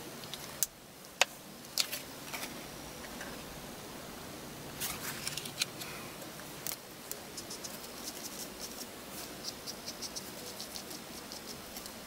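Faber-Castell India ink brush marker dabbing and stroking on paper: a run of light, scratchy ticks of about three a second in the second half. Three sharp clicks come in the first two seconds.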